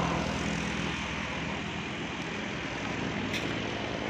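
Engine of a passing road vehicle running steadily and fading a little as it moves off, with a short click a little past three seconds in.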